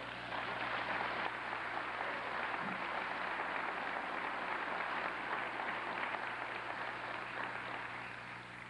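Audience applauding: a steady, dense clatter of many hands that tapers off near the end.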